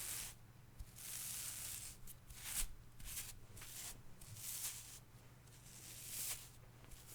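Hair brush drawn through hair: a series of bristly swishing strokes, one long stroke followed by several short quick ones and then a few longer ones, over a faint steady low hum.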